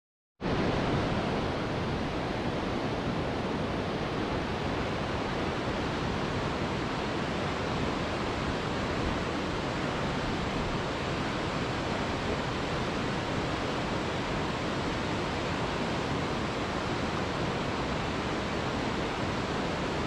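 Steady rushing roar of a high waterfall, an even, unbroken wash of noise that starts a moment in.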